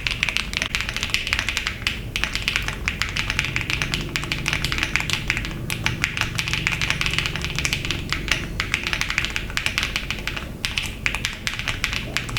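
Fast, continuous typing on a plateless, gasket-mounted RC65 mechanical keyboard with HMX Yogurt switches: a dense stream of key clicks.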